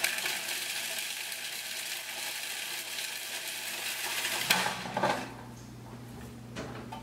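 Electric food processor running for about four and a half seconds, its blade chopping cooked bacon strips finely, then switched off. A couple of knocks follow near the end.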